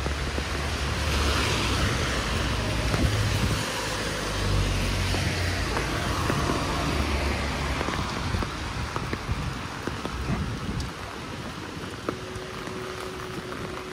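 A car drives past on a rain-soaked street, its tyres hissing on the wet asphalt with a low engine rumble, swelling and then fading away over the first half. Steady rain patters throughout.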